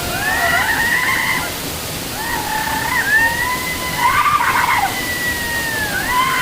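Background music, a melody of long held notes that slide up and down, over the steady rush of a waterfall.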